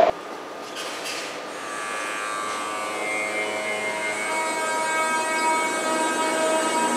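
NS ICM 'Koploper' intercity electric multiple unit pulling along the underground platform, its rumble joined by several steady whining tones that grow louder as it approaches.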